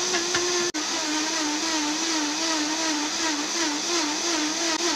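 Countertop blender motor running at full speed, pureeing celery, green apple, spinach, cucumber and water into a green drink; its pitch wobbles slightly up and down as the contents churn. The sound cuts out for an instant about three-quarters of a second in.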